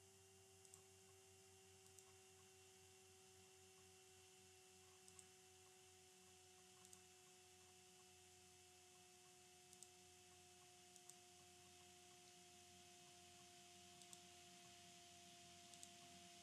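Near silence: a faint steady electrical tone with faint computer mouse clicks every second or few.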